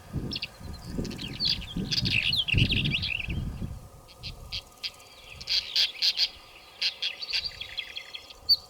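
Several songbirds chirping and trilling, with rapid short high chirps. Bursts of low rumble run under the first half and stop about halfway through.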